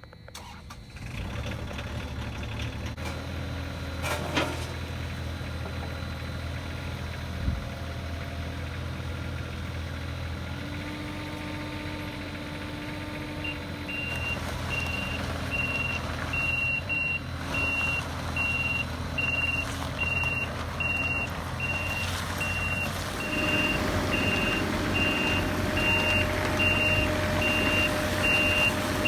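Mini excavator's diesel engine starts about a second in and runs steadily. From about halfway through, its alarm beeps at an even rate as the machine moves, and the engine gets louder near the end.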